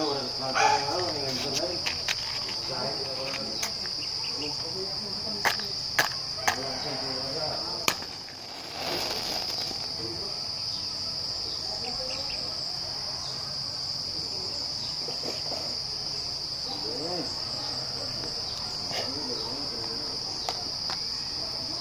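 Steady high-pitched chorus of insects, like crickets. A few sharp clicks come midway, then, about nine seconds in, a brief scratchy hiss as a match is struck and flares.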